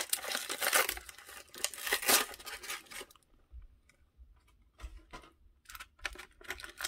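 Toy packaging being handled: about three seconds of tearing and crinkling, then scattered light clicks and taps.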